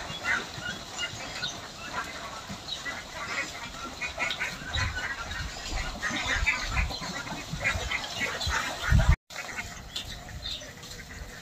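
A large flock of domestic ducks quacking and chattering continuously as they are herded along, with a few low thumps in the middle.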